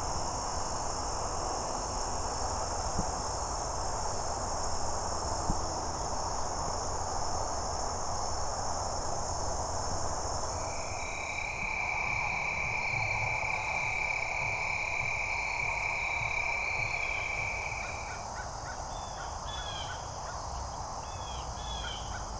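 Outdoor insect chorus: crickets trilling in a steady high buzz. About halfway through, a single lower steady trill takes over for several seconds, and near the end a series of short chirping calls comes in.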